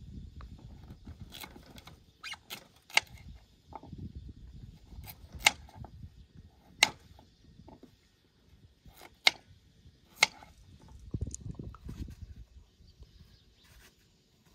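Knife slicing through a raw carrot held in the hand, giving sharp, crisp clicks every second or two as each piece is cut off, over a low rumble.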